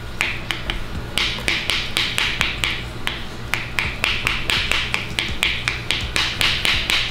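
Stainless wire whisk beating pancake batter in a plastic mixing bowl: quick, rhythmic clicks of the wires against the bowl with a wet swish on each stroke, about four to five strokes a second.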